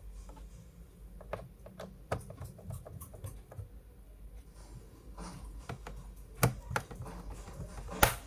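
Scattered light taps and clicks of things being handled, with two sharper knocks, the louder of them near the end.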